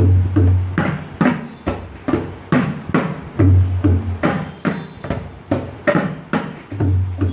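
Two tabla pairs played together, repeating the practice phrase 'ge ge tita ke ke tita'. Each round opens with two deep, ringing 'ge' strokes on the bayan, followed by quick, sharp dayan and bayan strokes. The phrase comes round about every three and a half seconds.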